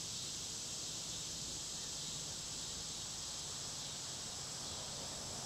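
Steady, high-pitched chorus of insects, an even hiss that holds without a break.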